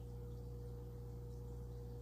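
A steady low hum with a faint constant tone above it; no distinct events.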